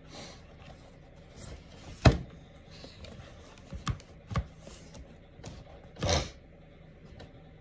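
Paperback book pages being handled and turned by hand: a sharp knock about two seconds in, two lighter clicks around four seconds, and a short papery swish about six seconds in.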